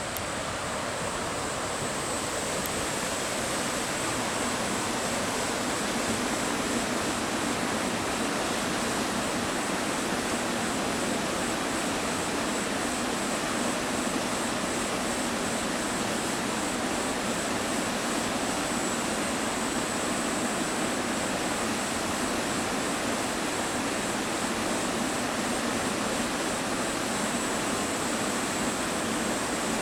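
Steady, dense rush of falling water from a waterfall, even and unbroken throughout.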